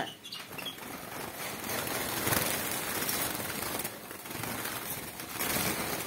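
Canaries flapping their wings in a flurry inside a wire flight cage, startled by a hand reaching in to catch one. The fluttering rush swells around two seconds in and again near the end.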